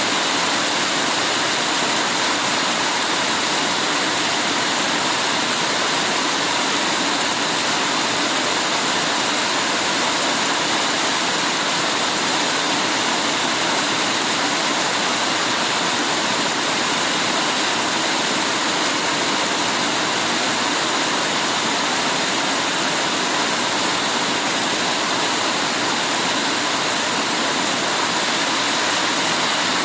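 Heavy rain falling in a steady, dense hiss, unchanging throughout.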